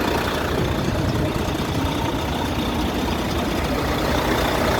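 Truck engine idling steadily with a fast, even low pulse.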